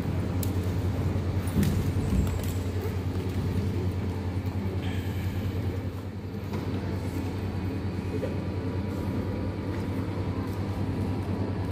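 Steady low engine hum heard from inside a vehicle, with a few light knocks in the first couple of seconds.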